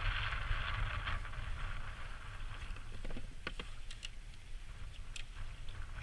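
Steady low wind rumble on the microphone, with a few small clicks and rustles of handling about three to four seconds in and once more a little after five seconds.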